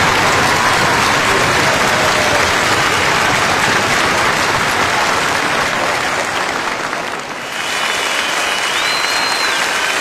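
Crowd applauding steadily, with a brief dip about seven seconds in before the clapping picks up again.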